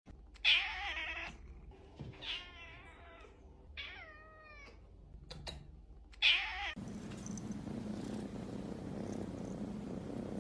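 Domestic cat meowing four times, several of the calls falling in pitch. Then, about two-thirds of the way in, a steady close-up purr begins abruptly.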